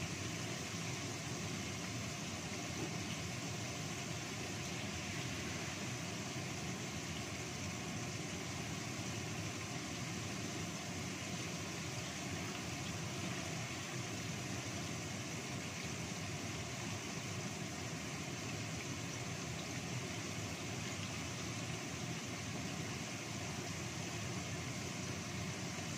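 Kitchen range hood fan running with a steady hum and rush of air, over flour-dusted fish pieces frying in shallow oil.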